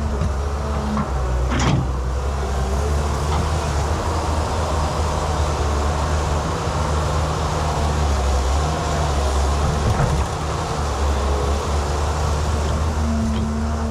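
JCB excavator's engine running steadily at a constant pitch, with a few short knocks, one about two seconds in and another about ten seconds in.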